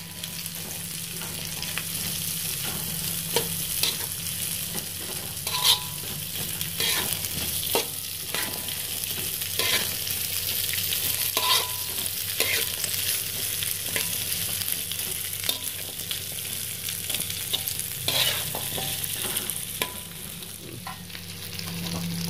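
Slotted metal spatula scraping and clinking irregularly against a wok while sliced jengkol, chillies and dried anchovies are stir-fried, over a steady sizzle of frying.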